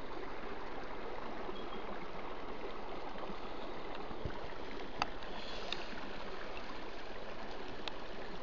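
Running river water, a steady rushing flow, with a couple of light clicks about five and eight seconds in.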